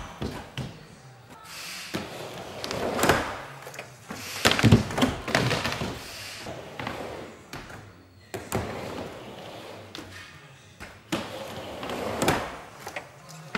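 Skateboard riding a wooden mini ramp: the wheels roll on the plywood, with several sharp hollow knocks and slaps as the board and feet hit the ramp. At one point the board gets away after a bailed trick.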